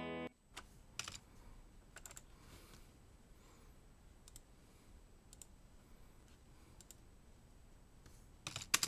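Scattered keystrokes on a computer keyboard, faint single taps about once a second, then a quick run of louder taps near the end.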